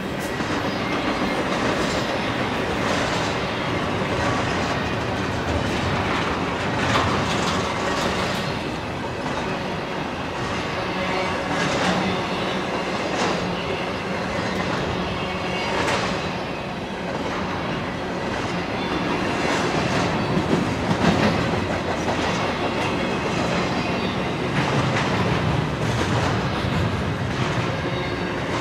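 BNSF double-stack intermodal train's container-laden well cars rolling past: a steady rumble of steel wheels on rail with repeated clicks and knocks as the wheels cross rail joints.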